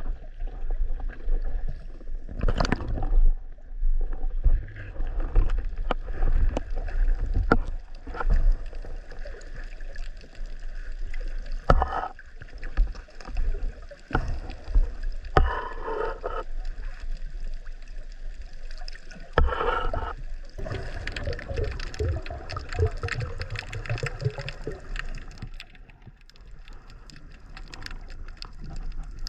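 Sea water sloshing and gurgling close to the microphone over a low rumble, with irregular splashes and knocks.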